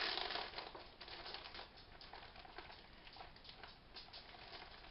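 Kitchen handling noise at the counter: a short, loud crinkling rustle, then soft scattered clicks and crackles as food and containers are handled.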